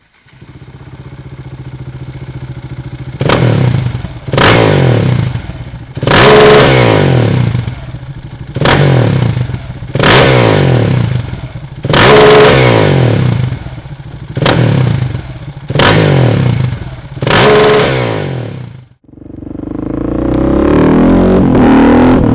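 KTM 690 SMC-R's single-cylinder engine through a Dominator aftermarket exhaust, idling and then free-revved in about nine sharp blips, each climbing and dropping back. Near the end the sound cuts out abruptly and a steadier engine note builds up again.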